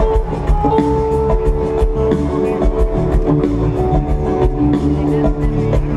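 Jam band playing live through the stage sound system, heard from out in the crowd: held guitar notes over a steady drum-kit beat.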